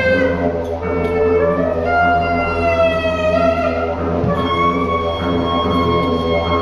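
Live instrumental music: a sliding, wavering melody over a steady low drone, settling onto a held note near the end.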